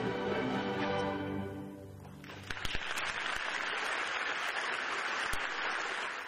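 An orchestra holding a final chord that fades away, then audience applause starting a little over two seconds in and cutting off suddenly near the end.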